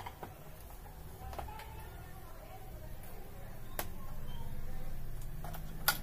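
Scattered small clicks and taps from a screwdriver and hands handling the plastic case and circuit board of an opened electronic drum pad. The sharpest click comes just before the end, over a low hum.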